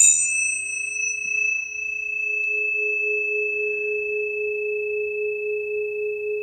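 A planetary tuning fork is struck once, giving a brief metallic clink whose high overtones die away within about a second. A pure, steady tone then rings on, pulsing gently in loudness toward the end.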